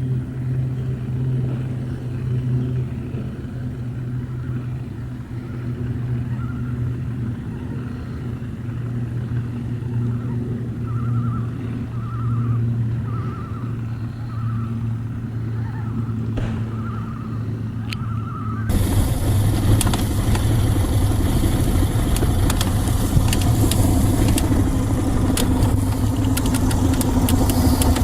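A 1969 Johnson 55 hp two-stroke outboard motor running steadily under way, as a low hum. About two-thirds of the way through, the sound switches suddenly to a louder rush of wind and water with clatter.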